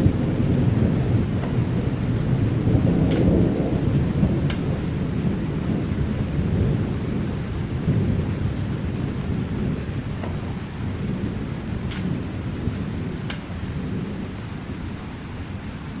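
Rain falling steadily under a long, low roll of thunder that slowly fades away, with a few separate drips standing out.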